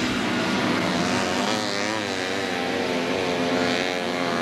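Engines of several Honda Odyssey and Pilot off-road buggies racing, their pitch wavering up and down as the drivers work the throttle.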